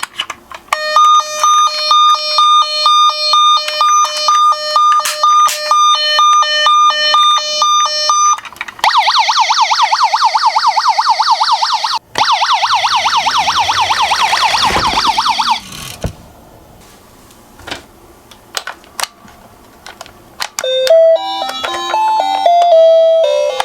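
Electronic emergency siren sounds. First a two-tone siren alternating high and low about twice a second, then a fast warbling yelp of about four rising-and-falling sweeps a second. After a quieter stretch with a few small clicks, a short electronic chime melody starts near the end.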